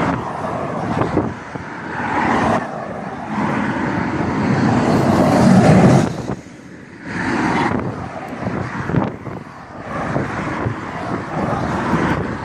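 Airbus A380 jet engines rumbling in reverse thrust as the airliner slows on the runway just after touchdown. The rumble swells to its loudest about five to six seconds in, drops away sharply, then comes back and carries on unevenly.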